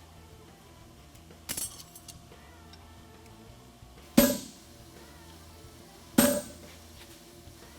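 Three separate hammer blows on a steel horseshoe over the anvil, each ringing briefly: one lighter strike, then two hard ones about two seconds apart, as the farrier draws the toe clip.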